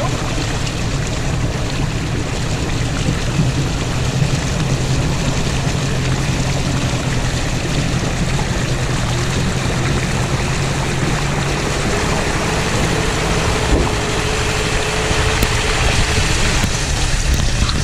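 An off-road 4x4 wading through a river ford: its engine runs steadily at low speed under the constant rush and splash of water thrown up by the front wheel against the body. Toward the end the vehicle climbs out onto a stony track.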